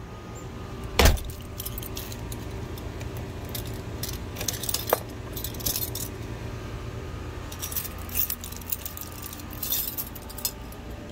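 Keys on a ring jangling in short bursts, handled at a door's deadbolt, after one loud sharp knock about a second in. A steady low hum runs underneath.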